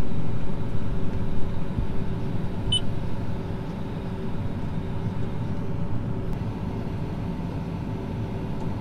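Case IH Magnum 340 tractor's diesel engine running, heard from inside the cab, with a steady whine over the rumble while the hydraulics unfold the wings of an anhydrous ammonia toolbar.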